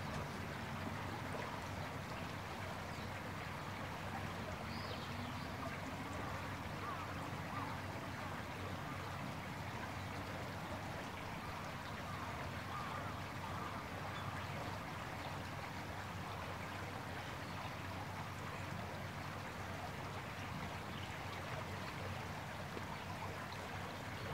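A steady, even rushing noise that holds at one level throughout, with a faint low hum beneath it.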